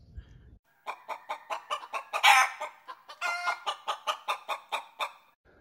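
Chickens clucking: a quick run of short clucks, several a second, with one louder call about two seconds in.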